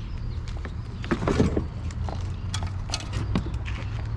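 Handling noise: scattered knocks and clicks, with a louder cluster about a second in, over a steady low hum.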